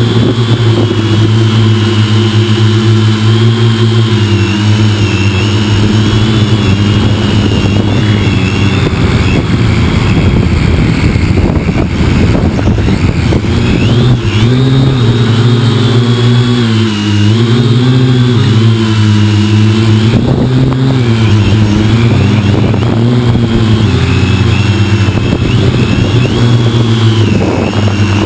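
Syma X6 quadcopter's electric motors and propellers buzzing in flight, heard close up from the camera on its body. The pitch wavers up and down as the motor speeds change, most in the middle of the stretch.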